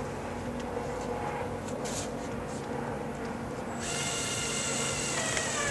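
Power drill driving a screw through a solar screen's base housing into the wall, starting about two-thirds of the way in as a high whine that drops in pitch near the end, over a steady low hum.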